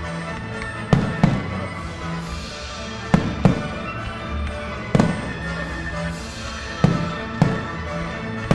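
Aerial firework shells bursting with sharp bangs, about eight of them, several in pairs a third of a second apart, over music played for the show.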